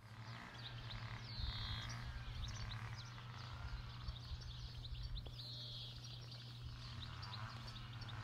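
Birds singing in a quiet garden chorus: many short high chirps, with one song phrase coming twice about four seconds apart, over a steady low hum.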